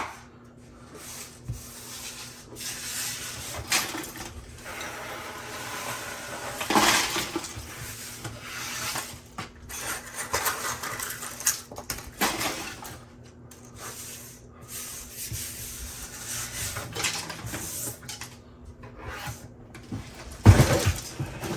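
Hard 3D-printed plastic parts and broken-off support scraps clattering and knocking on a tabletop as they are handled and cleared away, in irregular clicks and rattles with a louder knock near the end.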